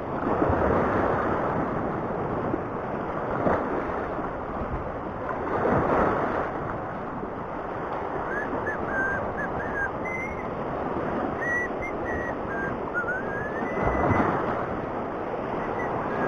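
Sea surf washing over a rocky reef edge, surging a few times. Faint high whistled chirps come in over the wash about halfway through.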